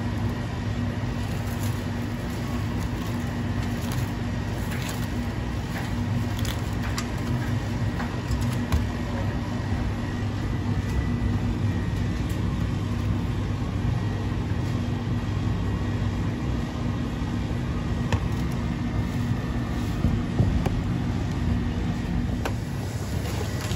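Steady low background hum, with scattered light taps and crinkles as cling film is smoothed over a stainless steel pan.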